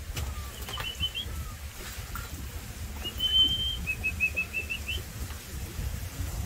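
High whistled notes: a short pair about a second in, then a long held note, then a quick run of short notes rising slightly in pitch, over a steady low rumble.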